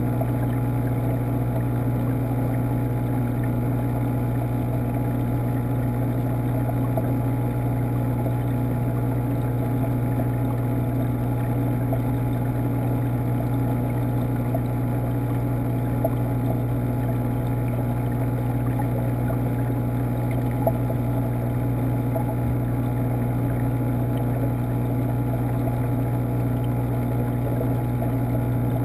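Steady low hum of saltwater aquarium pumps and circulating water, heard muffled through the water by a submerged camera.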